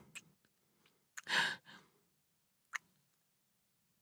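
A woman's soft, breathy sigh about a second in, with a short mouth click just before it and another near the end.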